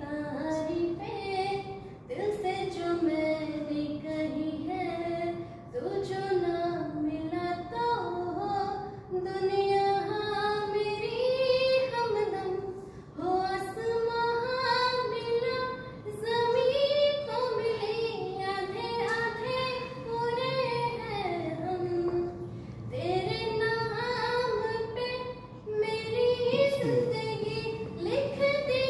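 A woman singing solo and unaccompanied, a slow melody whose pitch slides and bends between notes. She sings in phrases of a few seconds, with short breath pauses between them.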